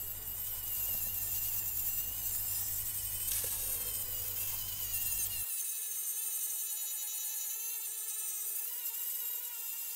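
AEG cordless angle grinder with a 140-grit flap disc whining steadily as it grinds the steel axe head to clean up scratches. About halfway through the low rumble drops away and the pitch of the whine changes.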